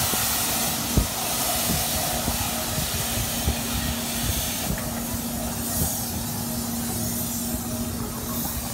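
Fairground kiddie helicopter ride's machinery running: a steady hiss over a steady low hum, with a few soft knocks. The hiss eases about halfway through.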